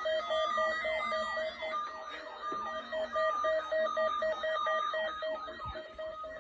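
Electronic alarm going off: a rapidly pulsing beep layered over repeated falling siren-like sweeps, fading slightly towards the end.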